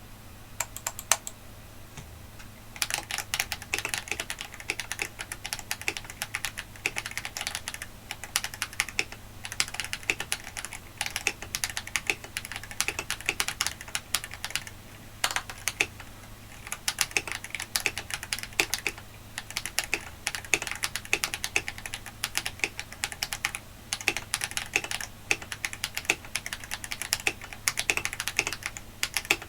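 Typing on a KBD67 Lite R3 mechanical keyboard with stock Feker Holy Panda tactile switches: a few scattered keystrokes at first, then a continuous run of fast key clacks from about three seconds in.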